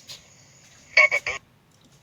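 A short voice sound-effect clip saying "baba boi" in three quick syllables, heard once about a second in, as one repeat of a looping sound effect.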